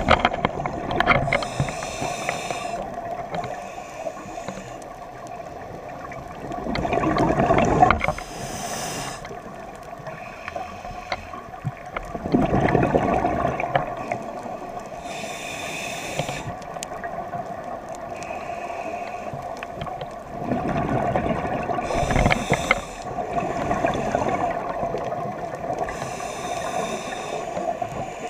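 Scuba diver breathing through a regulator underwater: a short hiss on each inhale and a louder rush of exhaust bubbles on each exhale, repeating about every six to seven seconds over a steady hum.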